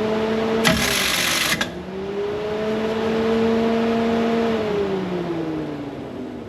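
An electric motor whirring up to speed, running steadily and spinning back down, twice. A short burst of hiss comes about a second in.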